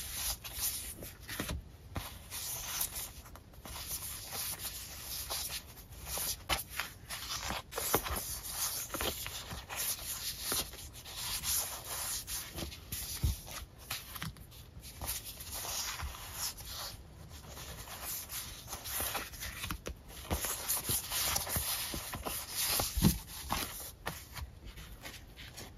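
Paper sticker sheets handled and slid against one another, a continuous rustle with frequent light taps and flicks of the paper edges.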